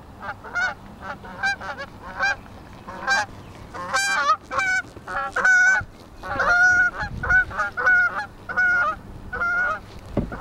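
Geese honking: a long run of short, repeated honks, sparse at first and then coming faster and louder from about four seconds in.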